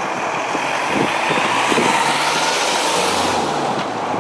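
Ford Transit van driving past close by, its engine and tyre noise swelling to a peak a couple of seconds in, then fading.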